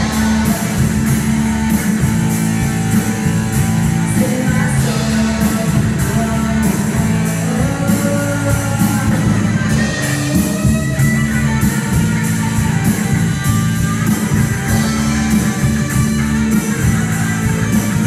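Live rock band playing loudly: electric guitar and bass guitar over a drum kit keeping a steady beat.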